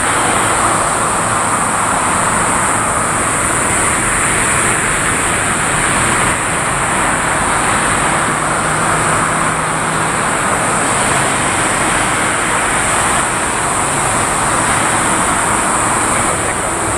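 Boeing 777 freighter's GE90 turbofan engines running steadily at low power, a continuous broad rush with a steady high-pitched whine over it.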